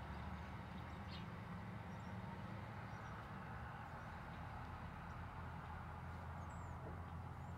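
A steady low hum under an even hiss, with a few faint, short high chirps.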